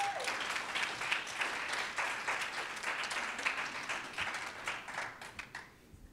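Small audience applauding by hand, dying away about five and a half seconds in.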